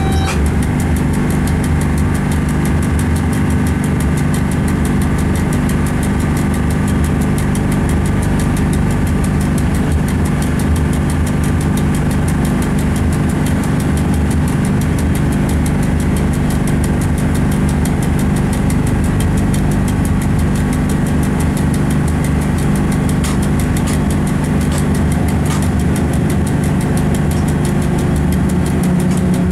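Steady running drone of a locomotive heard from inside the driver's cab while the train moves along the track: a constant low hum made of several unchanging tones.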